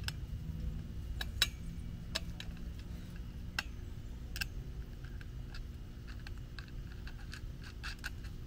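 Irregular light clicks, taps and scrapes of metal greenhouse frame poles and connectors being handled, fitted together and screwed, over a steady low background rumble.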